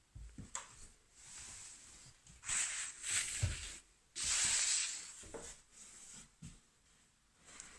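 Rubbing and rustling noises, with two louder hissing bursts about two and a half and four seconds in.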